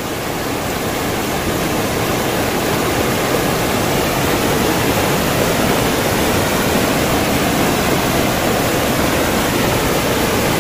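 Swift river current rushing through shallow rapids, a loud, steady wash of water.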